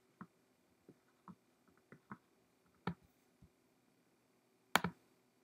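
Faint, scattered computer mouse clicks, with a sharper double click near the end.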